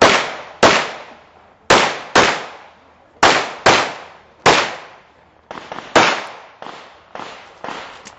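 Handgun shots fired in rapid succession during a timed practical shooting stage, each a sharp crack with a ringing tail. The shots come mostly in quick pairs, about half a second apart. After about five and a half seconds they come as a steadier string roughly every half second, most of them softer.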